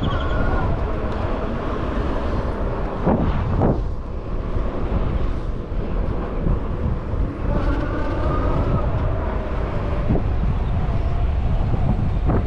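Wind rumbling on the microphone of an electric scooter riding along the street, with road noise and an electric motor whine that rises in near the start and again past the middle. A couple of short thumps about three seconds in.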